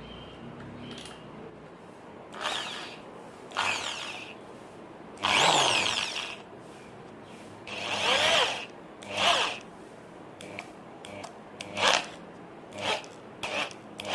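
Electric drill run in about a dozen short bursts, drilling a hole in a wooden perch branch. The motor's pitch glides up and down as the trigger is squeezed and released; the longest burst, about a second, comes near the middle.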